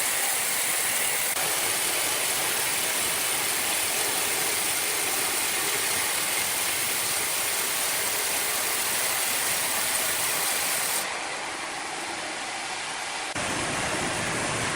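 Steady, noisy run of sawmill machinery with no clear pitch, changing abruptly twice near the end.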